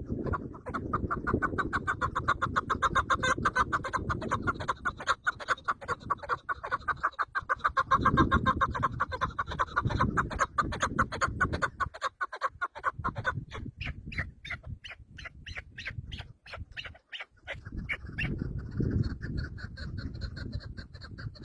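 A bird calling in fast, even runs of clucking notes. About thirteen seconds in, it changes to a string of higher, separate notes, then a steadier call near the end. A low rumbling noise runs underneath.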